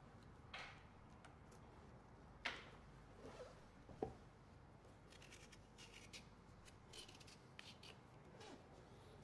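Faint knife work on a pumpkin: a small blade cutting and scraping the rind, with a few quick scratchy strokes in the second half and a couple of soft knocks as the pumpkin is shifted on the cutting board.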